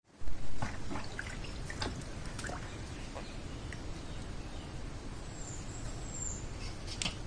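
Water sloshing and trickling with scattered small splashes and clicks over a low rumble, after two loud low thumps at the very start; a short high bird chirp comes about five and a half seconds in.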